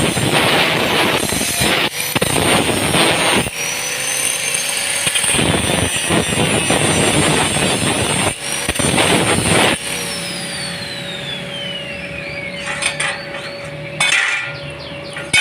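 A power tool working on the bus exhaust in several loud bursts of a few seconds each. About ten seconds in its whine falls steadily in pitch as the tool winds down, and a few sharp clicks follow near the end.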